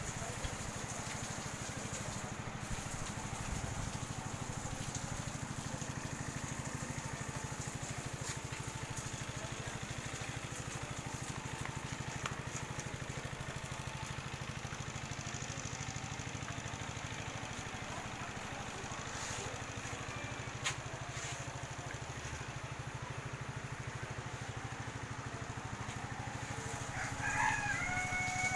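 A rooster crows once near the end, over a steady low mechanical hum and hiss.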